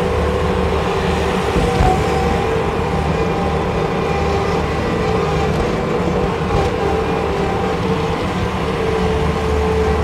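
A 2005 Bobcat S250 skid steer's Kubota V3300 four-cylinder turbo diesel running steadily as the machine drives and turns with its loader arms raised, a steady whine over the engine note.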